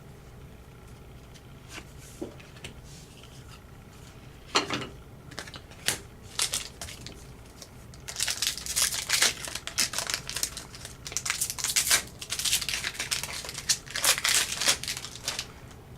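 Plastic wrapper of a hockey trading-card pack crinkling and tearing as it is opened by hand. There are a few scattered crackles at first, then steady dense crinkling through the second half.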